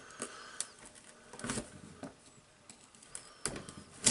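Scattered small clicks, scrapes and knocks of a screwdriver prying at the tool holder of a Hilti TE706 demolition hammer, with a few sharper knocks and the loudest one at the very end.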